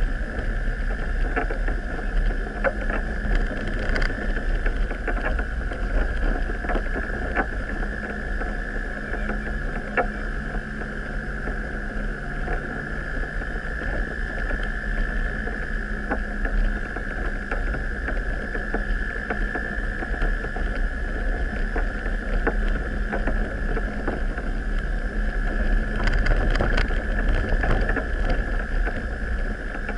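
Engine and running noise of an off-road vehicle driving slowly along a rutted dirt track: a steady rumble with a constant whine over it, broken by occasional knocks as it goes over bumps.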